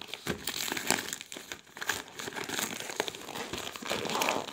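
Brown paper shipping envelope crinkling and rustling as it is handled after being torn open: a continuous run of irregular crackles.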